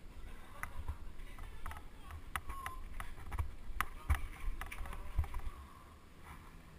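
Bicycle rattling and knocking as it rides over stone paving, with an irregular run of sharp jolts over a low rumble. The knocks die down about five and a half seconds in.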